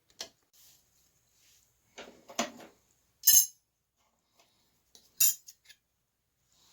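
A few scattered sharp metallic clinks and knocks of small metal tools and pieces being handled and set down on a workbench, with quiet stretches between them.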